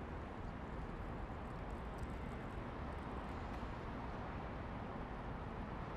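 Steady background hum of city traffic, with a few faint clicks about two to three seconds in.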